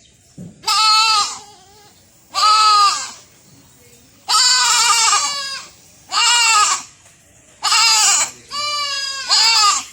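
Young goat (kid) bleating repeatedly: about six loud, wavering calls, each under a second long, with short pauses between them.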